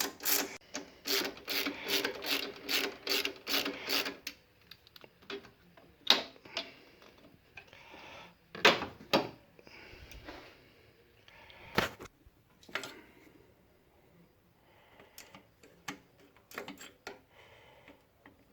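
Hand ratchet wrench clicking in a fast, even rhythm for about four seconds as a bolt is turned to close up the alternator's mounting bushing. After that come scattered clinks and knocks of tools and metal parts.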